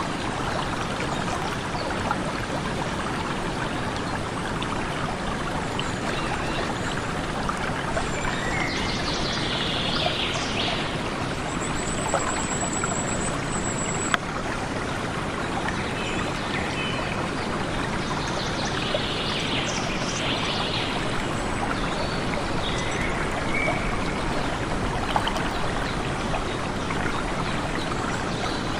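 Steady rushing of a flowing stream, with birds calling now and then over it: clusters of calls about nine seconds in and again near twenty seconds, and a thin high note held for about two seconds around twelve seconds.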